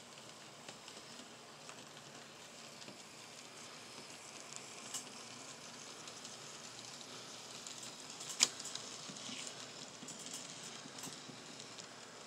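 N scale model trains running on the layout: a faint, steady rolling hiss of small wheels on track with scattered light clicks, and one sharp click a little past the middle.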